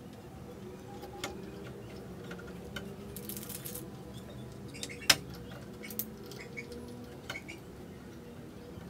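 Scattered light metal clicks and clinks of a hex key and parts on the aluminium motor mount and toothed pulley of a NEMA 23 stepper motor being fitted, with one sharper click about five seconds in. A faint steady hum runs underneath.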